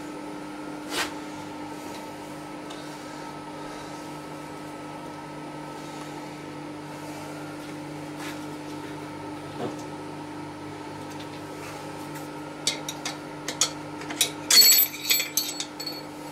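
Steel parts clinking against a cast-iron tractor steering box housing during reassembly: one clink about a second in, then a quick flurry of ringing metallic clinks and rattles in the last few seconds. A steady low hum runs underneath.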